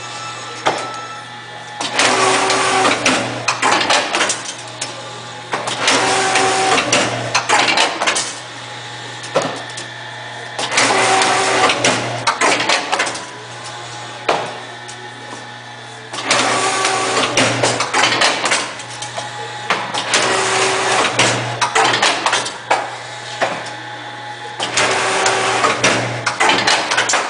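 Miryong MR-500 twin-ring wire binding machine running through repeated binding cycles: a clattering mechanical burst of a couple of seconds about every four to five seconds, six in all, over a steady motor hum.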